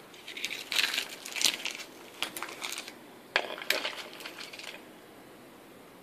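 Tangle of wires and cables with plastic plugs dropped and pushed into a plastic bowl, rustling and clicking against its sides in a string of sharp clatters for about five seconds, then stopping.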